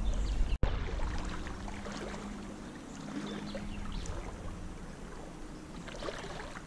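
Creek water sloshing and splashing around the legs of someone wading through a shallow, clear stream, with the water trickling.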